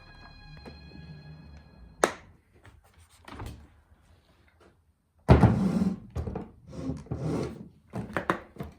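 Background music dies away in the first two seconds, followed by a sharp knock and then, from about halfway, a run of loud irregular thunks and rubbing, like things being handled and set down on a workbench.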